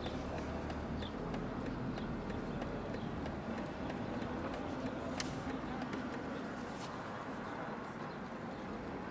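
Steady low rumble of a car and the city traffic around it, heard from inside the car's cabin, with faint scattered ticks and one sharp click about five seconds in.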